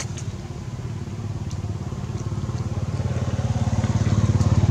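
A small vehicle engine running off camera, a low rapid throb that grows steadily louder toward the end as it draws near.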